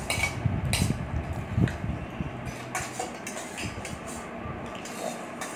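Metal spoons scraping and clinking against stainless steel bowls while eating, with a few sharp clinks spread through.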